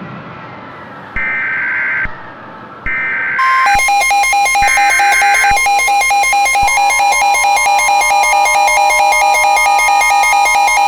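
Mock Emergency Alert System alert tones: three short bursts of warbling data-header tones, then from about three and a half seconds a loud, evenly pulsing electronic alarm over steady attention tones, with a tone rising in pitch partway through. It cuts off abruptly near the end, the sign of a new warning about to be read: here a tornado warning.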